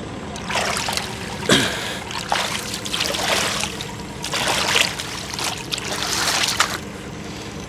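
River water splashing and trickling beside a small boat in about six surges, with one sharper splash about a second and a half in.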